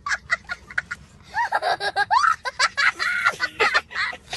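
A young child laughing hard: short breathy laughs at first, then from about a second and a half in, longer laughs whose pitch slides up and down.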